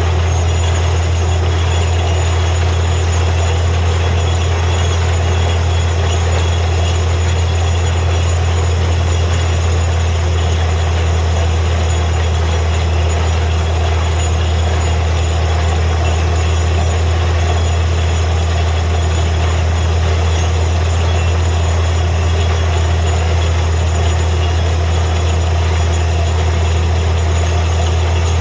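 Truck-mounted borewell drilling rig running while drilling: a loud, constant low drone with a steady rushing noise over it.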